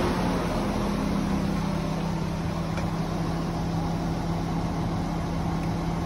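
A standing DB regional passenger train at a platform, running with a steady low hum and machinery noise.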